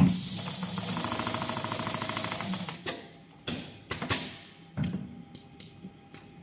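Richpeace rotating-head computerized sewing machine stitching rapidly through leather with a fast, even clatter, stopping a little under three seconds in. After it stops, a run of separate sharp clicks and knocks from the machine's mechanism follows.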